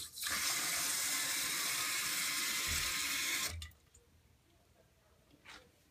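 Water hissing into a 2008 Jacuzzi Maxima 1.6 gpf toilet tank through the fill valve as it refills, the valve shutting off abruptly about three and a half seconds in when the tank is full. A couple of faint clicks follow near the end.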